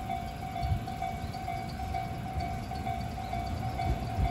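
Japanese railway level-crossing alarm ringing its evenly repeating electronic ding, over the low rumble of a JR Nambu Line train approaching the crossing.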